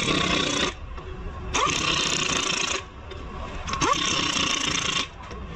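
Pneumatic impact wrench hammering car wheel lug nuts tight, in three bursts of about a second each. Each burst opens with a short rising whine as the air motor spins up.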